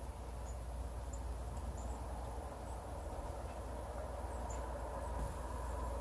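Faint, short, high-pitched chips from small songbirds, scattered through, over a steady low outdoor rumble and a thin high hiss.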